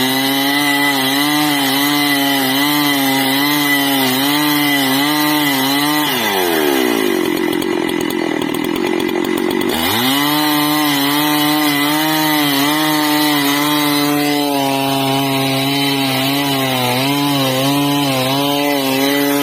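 Petrol chainsaw running at high revs while cutting a tree, its pitch wavering with the cut. About six seconds in the throttle drops and the revs fall to a rough idle; after about four seconds it is revved sharply back up and keeps running hard.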